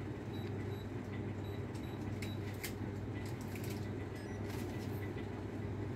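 Steady low electrical hum of a small shop's room tone, with faint rustling and light clicks scattered through it as goods and a plastic bag are handled at the counter.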